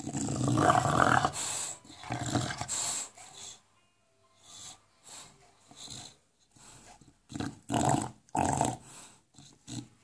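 English bulldog growling in play while mouthing a tennis ball, a gremlin-like monster sound. It comes in bursts: loudest through the first second and a half, again around two to three seconds in, then fainter, with two short bursts near the end.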